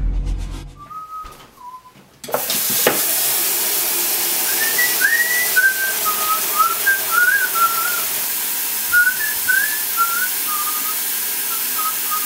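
Kitchen tap water pouring into a plastic bucket: a steady hiss that starts suddenly about two seconds in. Over it a man whistles a tune in short notes that slide up and down.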